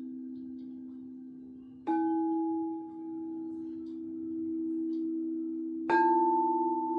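Crystal singing bowls ringing in long, overlapping low tones. A bowl is struck about two seconds in and another near the end, each strike adding a new, slightly higher ringing tone with a faint higher overtone, the last with a slight wavering beat.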